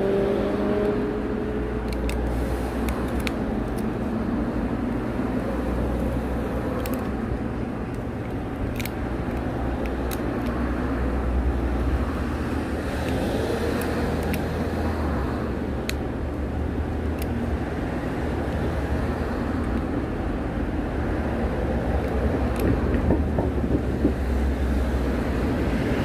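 A steady low rumble of background noise, with scattered faint sharp clicks from a small knife shaving a thin wooden stick.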